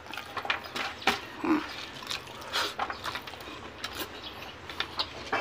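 Close-up chewing and lip-smacking of a man eating chicken and rice by hand: a string of irregular wet clicks and smacks, with a short low grunt about one and a half seconds in.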